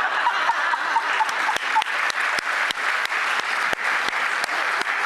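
Studio audience applauding: a steady, dense patter of many hands clapping.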